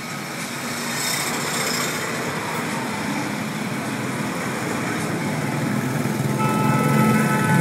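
Highway traffic heard from a moving vehicle: motorcycle and truck engines and tyre and road noise in a steady rush that grows louder. A steady pitched tone of several notes comes in near the end.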